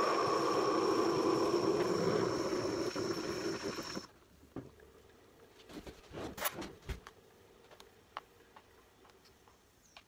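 De'Longhi espresso machine's steam wand frothing milk in a plastic tumbler: a steady hiss with a thin high whistle that cuts off sharply about four seconds in as the steam is shut off. A few light knocks and clicks of handling follow.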